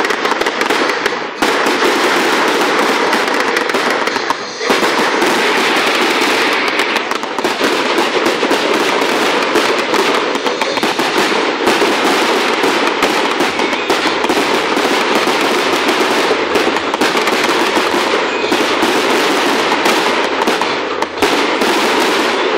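Fireworks display: dense, continuous crackling and popping of many overlapping bursts, with a few brief lulls.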